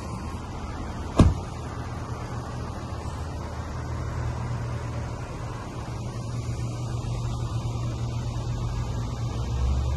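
A car door slams shut with one sharp thump about a second in. Under it and after it, the Lexus GS250's 2.5-litre V6 idles with a steady low hum.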